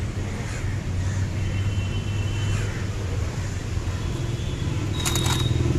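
Steady low rumble of road traffic, with a cluster of sharp clicks and a brief high tone shortly before the end.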